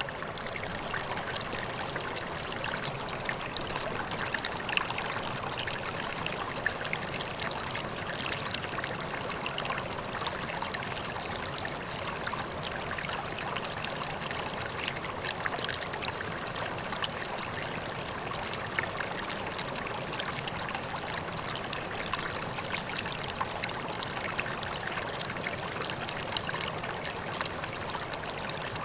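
Water trickling and splashing steadily into a koi pond, with many small droplet splashes.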